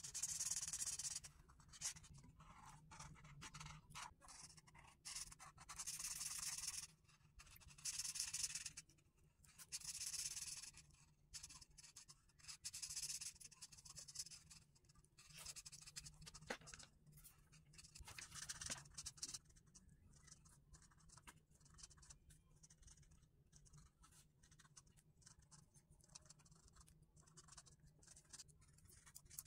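Felt-tip marker rubbing across paper in repeated colouring strokes, a soft scratchy hiss. Longer, louder runs of strokes come in the first half, and shorter, fainter dabs later.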